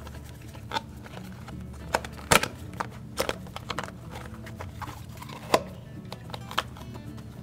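Sharp plastic clicks and knocks, irregular, as a white plastic cover is pushed and slid onto a new washing-machine drain pump motor. The loudest snap comes a little over two seconds in.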